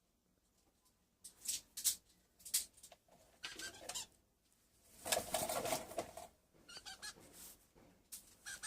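Eclectus parrot giving a run of short, high squeaks, with one longer call about five seconds in.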